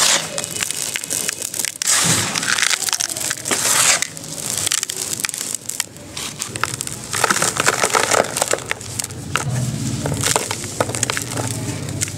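Hands raking, squeezing and crumbling dry, powdery sand-cement mix in a plastic tub: gritty crunching and sifting in several bursts, with small crackles as clumps break.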